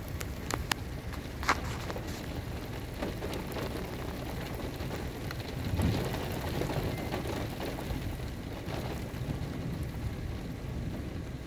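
Thunderstorm rain, a steady hiss over a low rumble. The rumble swells briefly about six seconds in, and a few sharp ticks come in the first two seconds.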